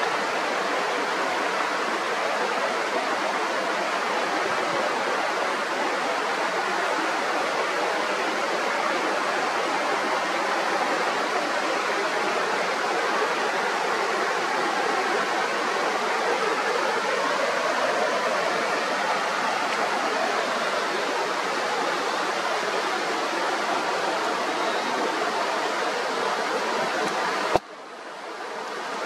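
Mountain river rushing steadily, an even wash of running water. Near the end a sharp click cuts in, the water sound drops away abruptly and then swells back up.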